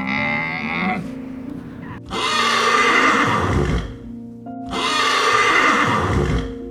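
Horse neighing twice, each call lasting about two seconds, over steady background music.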